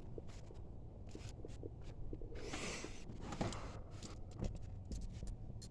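Scattered light clicks and a brief rustle of hand tools and parts being picked up and cleared away.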